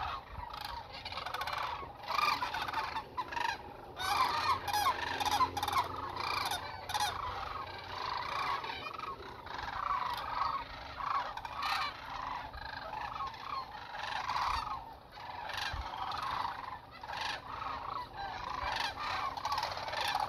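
A large flock of sandhill cranes calling together: many rolling, bugling calls overlapping without a break.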